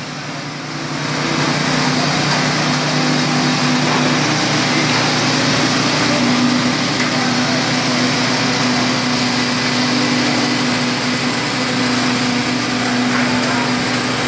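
Small portable petrol engine running steadily at a constant speed, a loud, even hum.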